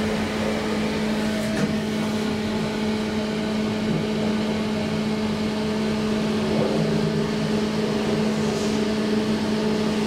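2012 SMW traction elevator starting off and travelling in its shaft: a steady machine hum, with a higher tone joining about a second in and a single click shortly after.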